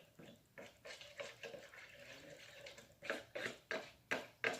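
Wet slime mixture being stirred and squished in a bowl, a run of short wet squelches that grow louder near the end.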